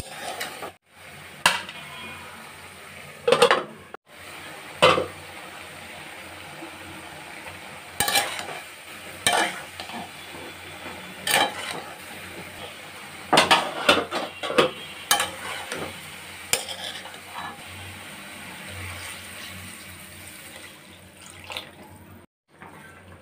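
Metal spatula scraping and knocking against a pan while stirring broccoli and potatoes, over a steady sizzle of frying. The knocks come irregularly, every second or two.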